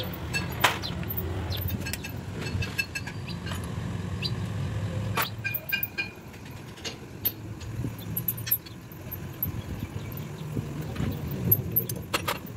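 Steady low vehicle rumble under scattered sharp metallic clicks and clinks of steel engine parts, the timing-cover plate and gasket, being handled against the engine block.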